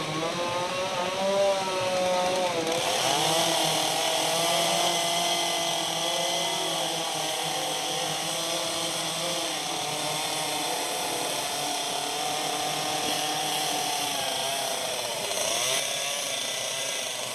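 Chainsaw cutting into a palm trunk. Its engine pitch wavers for the first few seconds, then about three seconds in the chain bites into the wood, adding a hiss, and the saw runs steadily at high revs under load.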